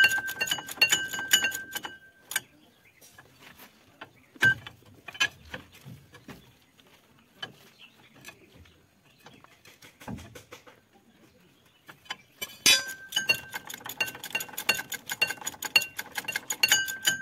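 Ratchet wrench clicking rapidly on a track roller bolt, in two spells: for the first two seconds and again from about thirteen seconds in. In between come scattered light metal clinks and one sharper knock at about four and a half seconds.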